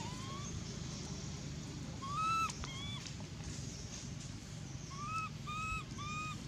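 Infant long-tailed macaque giving short, high-pitched coo calls, each rising then dropping away. There is one call at the start, two louder ones about two seconds in, and three in quick succession near the end.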